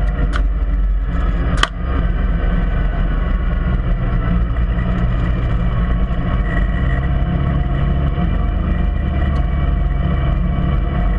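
UTV engine running as the vehicle drives along a dirt track: a steady low rumble, with one sharp knock about a second and a half in.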